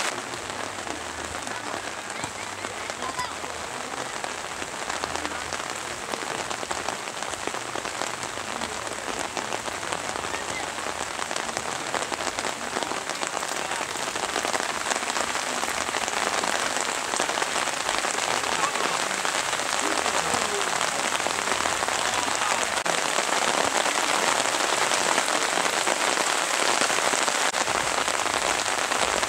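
Steady rain pattering, a dense hiss of fine drop ticks that grows louder about halfway through.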